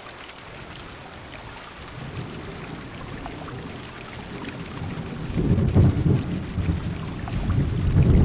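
Heavy rain pattering on a car window, with thunder rolling in. The rumble builds about two seconds in and swells twice, loudest about halfway through and again near the end.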